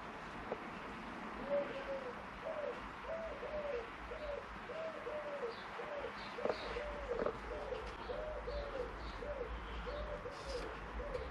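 A pigeon cooing, a long run of low rise-and-fall notes repeated about one or two a second, with a few light clicks in between.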